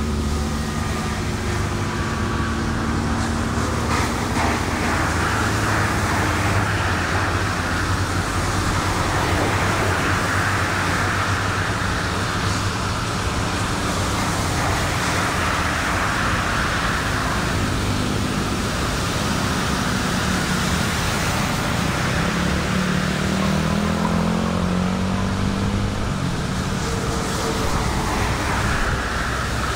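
Floodwater running across a road, with vehicles driving through it: a steady rush of water, with the hiss of tyres through the water and engine noise swelling and fading as they approach. A vehicle engine hum grows louder in the later part as a minibus draws near.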